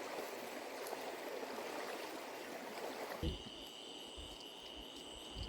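Rushing water, an even hiss. About three seconds in, it gives way to a steady high insect trill with a low rumble beneath.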